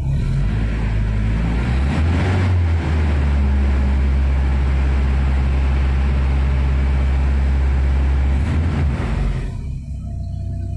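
1985 Toyota SR5 4x4 pickup's four-cylinder engine revved up from idle and held steady at about 2,000 rpm for several seconds, then dropping back to idle near the end, heard from inside the cab.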